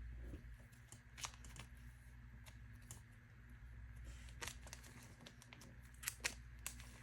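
Faint crinkling of plastic binder sleeves, with a handful of light clicks, most of them near the end, as photocards are slid into the pockets, over a low steady hum.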